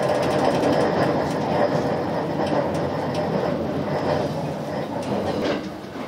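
Running noise inside a JR West 287-series limited express car: a steady rumble of wheels on rail with a few light clicks, dropping in level shortly before the end.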